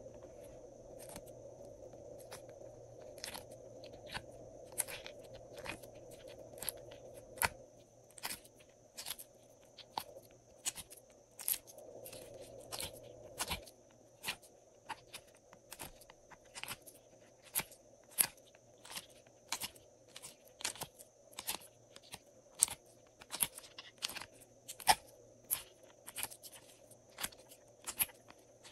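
Mint-green slime being squeezed and peeled out of a silicone Mickey Mouse mold, giving sharp, irregular sticky clicks and pops, several a second, that come thicker after the first few seconds.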